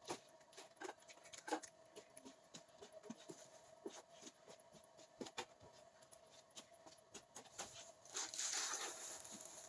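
Scattered light knocks and clicks of household items being handled, over a faint steady hum, with a louder hissing rustle about eight seconds in.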